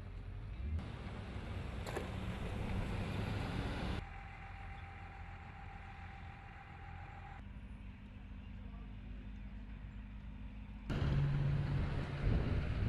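Outdoor field sound over several edited shots that change abruptly, mainly vehicle engines running with low rumble and noise. A steady hum sits in the middle, and a louder low drone starts near the end.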